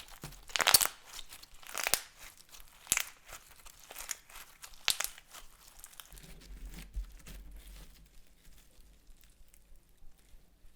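Crunching and crackling, a sharp burst about once a second for the first five seconds, then fainter handling sounds: things being crushed and worked into slime.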